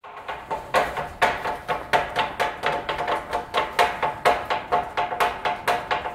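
Tontoko-ame candy cutting: knives chopping sticks of candy on wooden cutting boards in a steady 'tontoko' rhythm. The knocks are sharp, about two loud strokes a second with lighter taps between, each with a short ringing tone.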